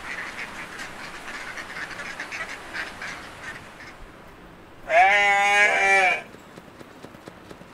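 Duck quacking for the first three seconds or so. About five seconds in, a single loud, wavering goat bleat lasts just over a second.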